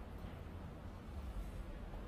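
Quiet outdoor background with a faint steady low rumble and hiss, and no distinct event.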